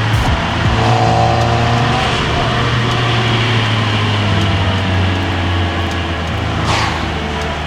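Audi A4 B9's 2.0 TFSI turbocharged four-cylinder engine running at a steady pitch under way, with road noise. There is a brief whoosh about seven seconds in.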